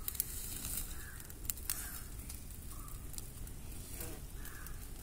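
Open wood fire of firewood and dry palm fronds burning, with a few sharp crackles and pops over a steady low rush.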